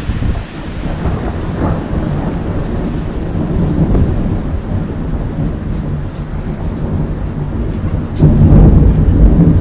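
Rain during a thunderstorm, with a low rolling rumble of thunder that swells louder about eight seconds in.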